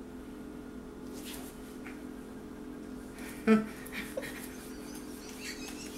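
A woman's short yelp of effort about three and a half seconds in, with breathy huffs and scuffles around it during a thumb-wrestling struggle, over a steady low hum.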